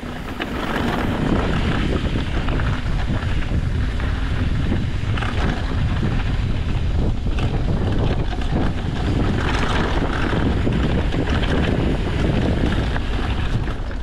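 Wind buffeting the microphone over the rumble of a mountain bike's tyres and suspension on a rough downhill trail. Scattered clicks and knocks come through, several in the second half.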